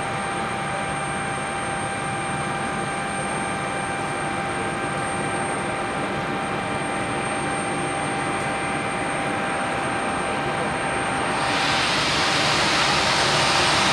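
Jet airliner engines running at taxi power: a steady whine with several held tones over a low rumble. About eleven and a half seconds in, a louder rushing hiss joins and the sound swells.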